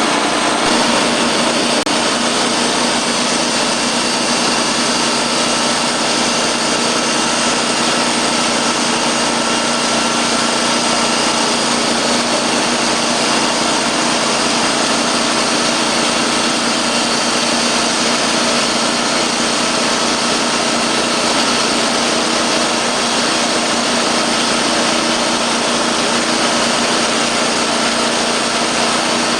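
Timberking B-20 portable band sawmill running, its engine at a steady, unchanging note.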